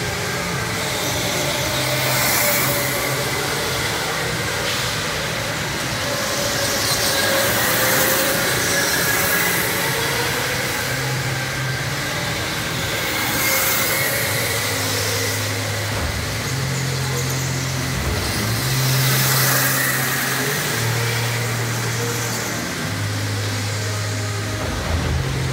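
Go-karts lapping an indoor track and passing again and again, about every five to six seconds, with a whine that rises and falls, echoing in a large hall.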